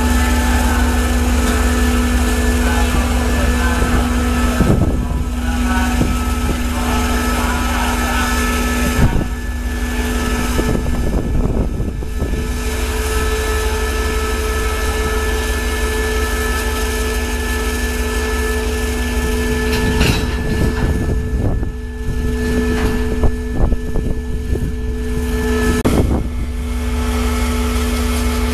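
SRT CSR diesel-electric locomotive 5103 running at low power while it shunts slowly, its engine giving a steady hum over a heavy low rumble. Several short knocks come through, near 5 and 9 seconds in and again from about 20 to 26 seconds in.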